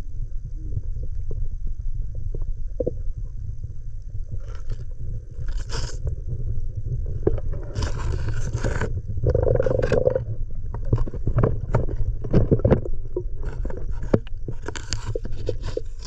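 Sound picked up by a camera underwater in shallow sea water: a steady low rumble of moving water with scattered clicks and crackles, and several short scraping noises, the longest about halfway through. A faint high whine runs underneath.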